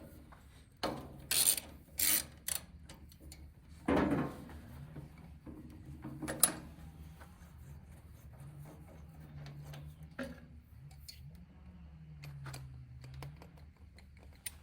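Hand tools working on a spark plug: short bursts of ratcheting and metal-on-metal scraping in the first few seconds, a louder knock about four seconds in, and a sharp click a couple of seconds later.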